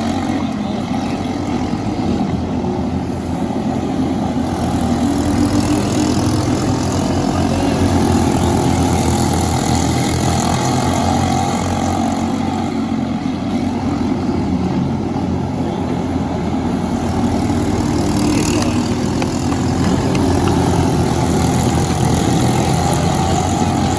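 Briggs & Stratton LO206 four-stroke kart engines running steadily, a layered engine drone with no sharp revving.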